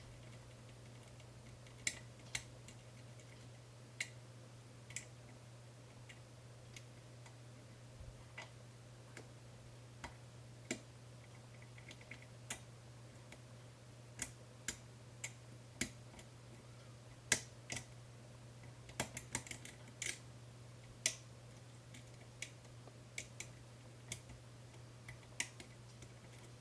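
Small sharp metal clicks and ticks at uneven intervals, a few in quick succession midway, from a lock pick lifting and rotating the pins of a 5-pin Medeco cam lock. A steady low hum runs underneath.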